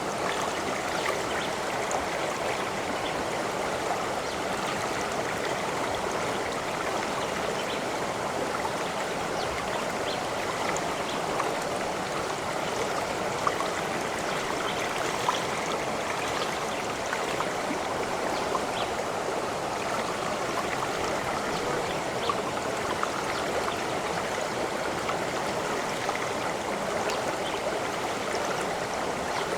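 A stream of water running over rocks, a steady rush with small splashes and trickles.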